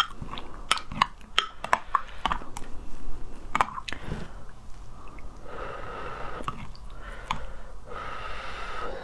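Metal spoon clinking and scraping against a glass mug while stirring thick, sticky lotus root starch paste. Quick sharp clinks fill the first few seconds, then give way to softer, longer rushing sounds.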